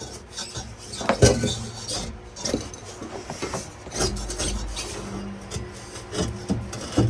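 A cut-off exhaust muffler and pipe being pulled out from under a truck: irregular metal scraping and rubbing, with knocks and clanks as the pipe catches.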